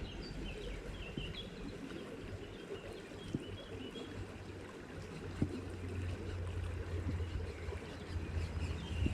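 Small stream flowing over stones, with a steady low rumble and faint bird chirps. Two soft knocks come about a third and halfway through.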